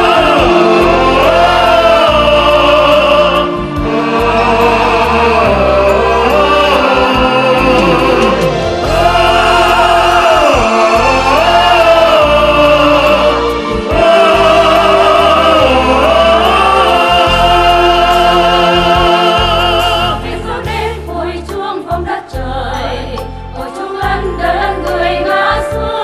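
Choir singing long held notes with vibrato over instrumental accompaniment, in a Vietnamese memorial song. About twenty seconds in, the voices drop out and a lighter instrumental passage carries on.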